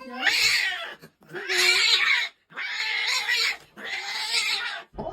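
A cat giving four harsh, drawn-out cries in a row, each about a second long with short breaks between.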